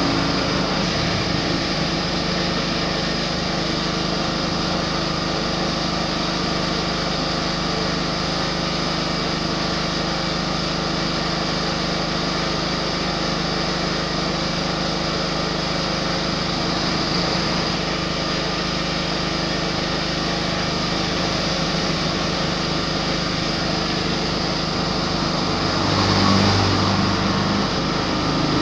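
A small engine running steadily, a constant drone with several held tones, swelling briefly near the end.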